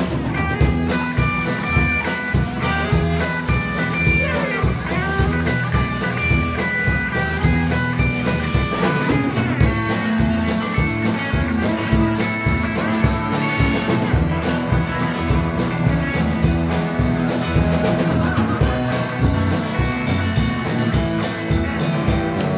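Live rock and roll band playing an instrumental stretch: electric guitars over a steady drum-kit beat, with no singing.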